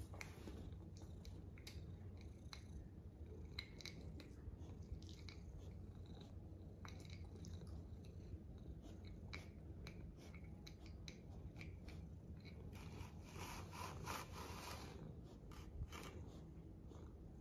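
Domestic cat purring softly, with small scattered clicks. A soft rustle about three-quarters of the way through as the cat rolls onto its side.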